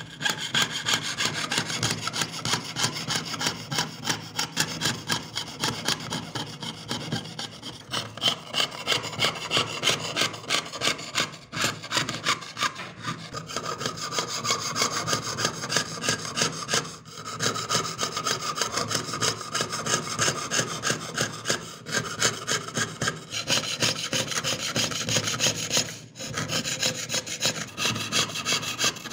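Jeweler's saw cutting through thin metal sheet, piercing out the background of an engraved pendant design. Fast, even back-and-forth strokes, about five a second, with brief pauses every few seconds.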